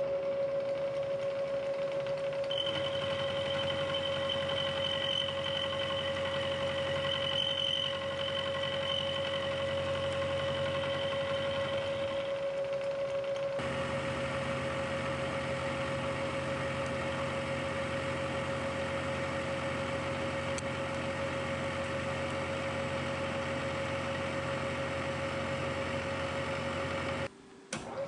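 Vertical milling machine running with a steady whine as a 5/8-inch four-flute high-speed steel end mill side-mills the end of a steel block. The sound changes character abruptly about halfway through and drops out briefly near the end.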